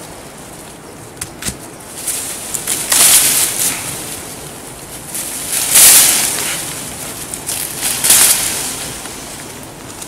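Leafy wild hop vines rustling and tearing as they are dragged down out of the bushes with a rake, in three loud surges about three, six and eight seconds in, with small snaps of twigs between.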